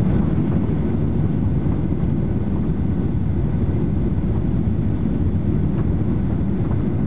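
Cabin noise of a Boeing 737-800 on final approach: the steady low rumble and rush of its CFM56-7B engines and the air streaming past the fuselage, heard from inside.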